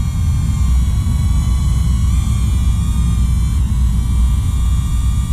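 DJI Neo mini drone's propellers whining steadily in flight, a few fixed pitches that shift slightly now and then, over a loud low rumble.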